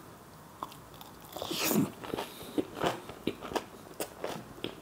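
Close-miked biting and chewing of a crumb-coated, deep-fried egg devil with a raw onion ring. The loudest crunch comes a little under two seconds in, followed by steady crunchy chewing at about three bites a second.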